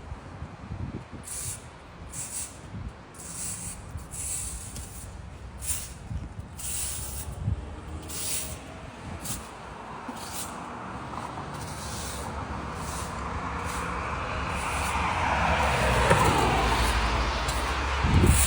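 A motor vehicle approaching and passing: a broad road noise that builds over the second half and is loudest near the end, with a low engine rumble underneath.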